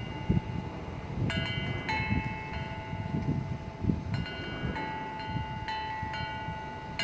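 Wind chimes ringing irregularly in gusty wind, about seven clusters of clear overlapping tones that hang and fade, over a low rumble of wind on the microphone.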